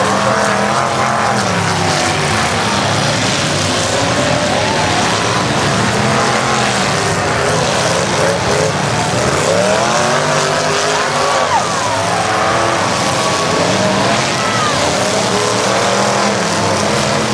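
Several demolition-derby pickup trucks' engines revving up and falling back over and over as the trucks push against one another, over a constant din.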